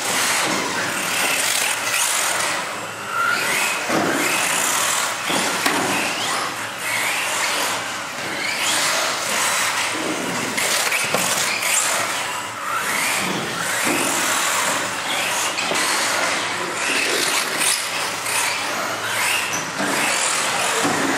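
Several radio-controlled model cars running laps on a hall floor, their motors whining up and down in pitch over and over as they accelerate and brake.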